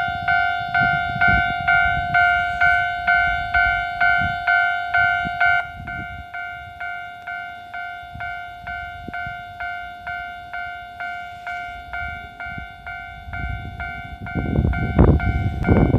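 Japanese level-crossing alarm ringing its two-tone electronic bell at an even beat of about two and a half strokes a second, dropping in level about five and a half seconds in. Near the end the rumble and wheel clatter of an approaching KiHa 11 diesel railcar set rise over it.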